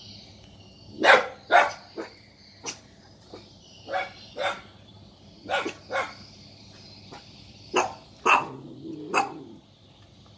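A dog barking in short, sharp barks, about a dozen, mostly in quick pairs about half a second apart: alarm barking at a stranger arriving.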